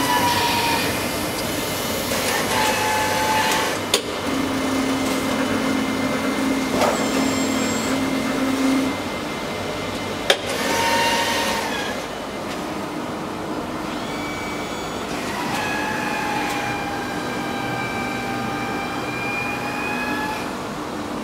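Screen PTR8100 computer-to-plate platesetter running: a steady mechanical hum with short motor whines as the imaging-head carriage travels, two sharp clicks, and a longer, slightly falling motor whine in the second half as the machine goes into unloading the plate.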